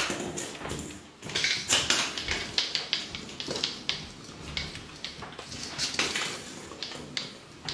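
Irregular clicks and taps of a Pomeranian puppy's claws on a laminate floor as it noses and chases a small ball, which knocks and rolls along the floor.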